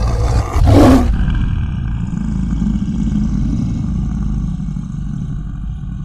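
Logo-intro sound effect: a sudden fiery whoosh and burst in the first second, then a deep rumble that slowly fades.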